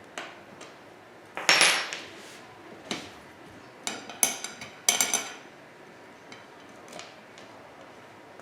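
Metal office-chair hardware clinking and clattering as bolts are fitted loosely into the seat mechanism. A scraping clatter comes about one and a half seconds in, sharp ringing metallic clinks follow around four to five seconds, and a few lighter clicks come between.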